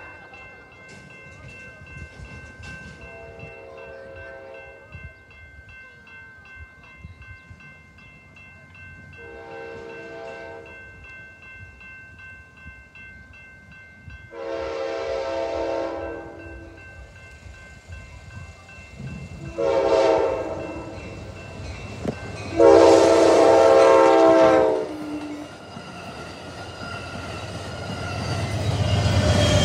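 Grade-crossing warning bells ring steadily while an approaching Amtrak passenger train sounds its horn for the crossing: five blasts growing louder, the fourth short and the last long and loudest. Near the end the train's wheels rumble louder as it passes over the crossing.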